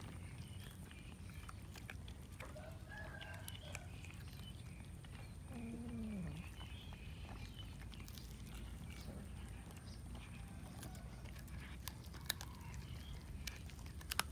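Several cats chewing and tearing at a chicken carcass: scattered small clicks and crunches over a steady low rumble, a couple of them sharper near the end. Two short pitched animal calls come a few seconds in, the second one falling in pitch.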